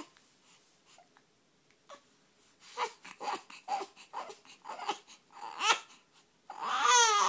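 Baby with hiccups fussing: a string of short whimpering cries, then a longer, louder wail near the end.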